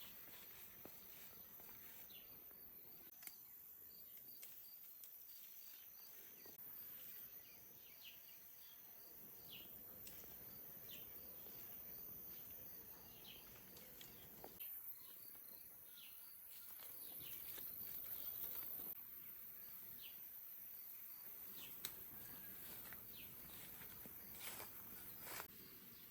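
Faint rural outdoor ambience: quiet background noise with a faint, evenly repeating insect chirp and a few short bird calls.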